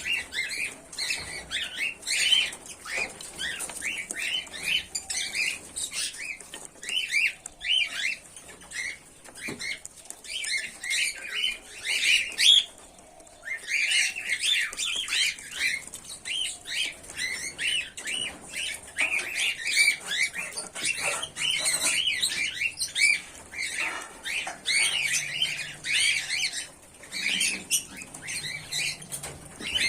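Pearl cockatiels chirping in a rapid, continuous chatter of short calls, with a brief lull about 13 seconds in.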